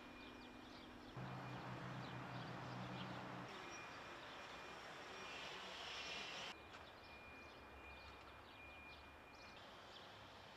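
Faint outdoor background noise of distant road traffic, with a vehicle engine humming steadily for a couple of seconds starting about a second in.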